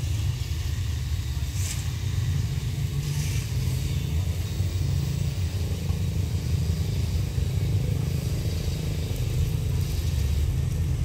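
Low, steady engine sound of a CSR Qishuyan diesel-electric locomotive approaching slowly at a distance.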